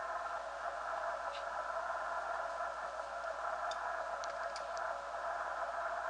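Yaesu FT-891 HF transceiver receiving on the 80-metre band in CW mode: steady band hiss through its narrow CW filter, with a few faint ticks.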